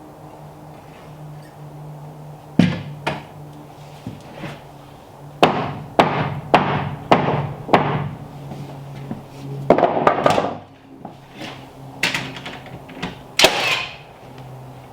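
A run of about a dozen irregular, heavy knocks and thunks on wood, starting a couple of seconds in, with a longer scraping clatter near the middle. A steady low hum runs underneath.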